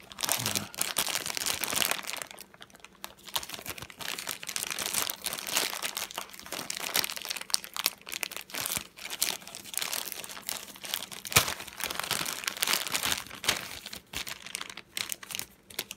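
Thin clear plastic toy bag crinkling and crackling irregularly as hands tear it open and work a small plush toy out of it, with one sharper crack past the middle.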